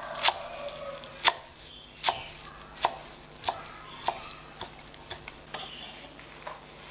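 Chef's knife chopping a pile of fresh Vietnamese mint on a wooden chopping board: about ten separate sharp knocks as the blade hits the wood, coming a little faster in the second half.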